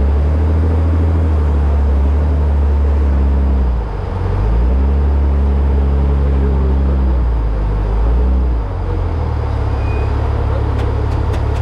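Trophy truck's turbocharged Ford EcoBoost engine running hard, a low, steady engine note. The note drops briefly about four seconds in and again near nine seconds, then carries on. A few faint ticks come near the end.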